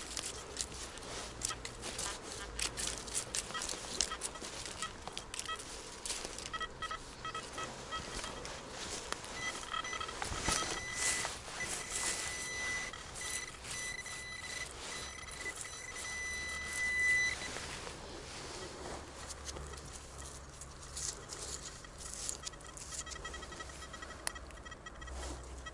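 Metal detector signal tones: pulsing beeps for a few seconds, then one steady high tone held for about seven seconds before it cuts off. Many sharp clicks and scrapes are heard throughout.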